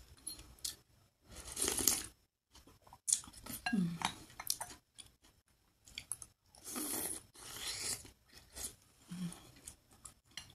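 Close-miked chewing of soft chicken wontons in soup, in several bouts of wet mouth noise, with a few short clicks of a ceramic soup spoon against a glass bowl.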